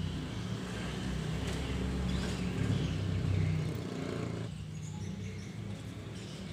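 Low rumbling background noise with a steady hum underneath, swelling a little in the middle and easing after about four and a half seconds.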